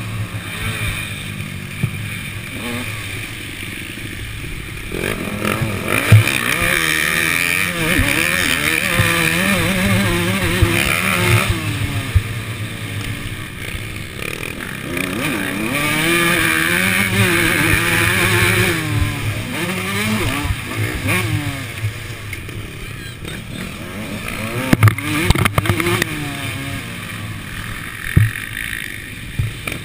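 Onboard sound of a two-stroke Suzuki RM motocross bike racing: the engine revs up and drops back again and again through the corners and gear changes, with a few sharp knocks from the bike hitting bumps.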